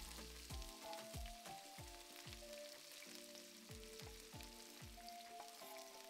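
Soft background music with a steady low beat and a simple melody, over the faint sizzle of keema cooking in the pot.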